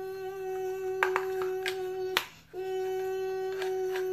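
A child humming one long, steady note to imitate a dentist's drill, breaking off briefly a little after two seconds in and then carrying on. A few light clicks from the plastic dolls being handled come through the hum.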